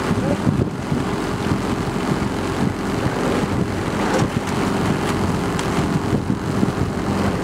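Outboard motor of a coaching launch running steadily, a constant engine drone.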